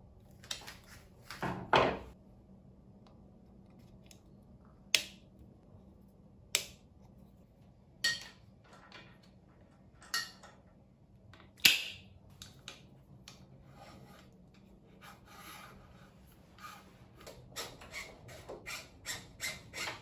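Hand tool and bike-part handling: scattered sharp clicks and knocks from a screwdriver and the hard plastic and metal of a Shimano Ultegra Di2 shift lever being fitted to drop handlebars. A short rubbing scrape comes about two seconds in, and a quick run of small clicks and rubs comes near the end.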